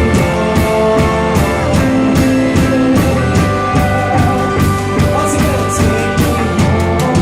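Live rock band playing an instrumental passage: electric guitar and bass over a steady drum beat.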